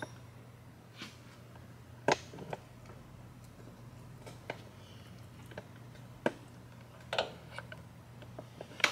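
Light metallic clicks and knocks, scattered irregularly with a small cluster near the end, as a Harley-Davidson Twin Cam oil pump is worked loose and slid off the pinion shaft by hand, over a steady low hum.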